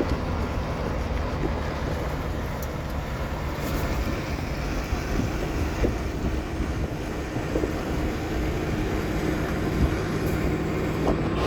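A vehicle driving steadily, heard from inside: continuous engine and tyre road noise with a few small knocks.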